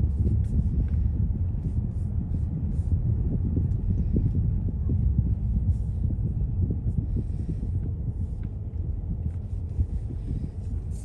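Steady low rumble of a car being driven: road and engine noise, with faint light ticks above it.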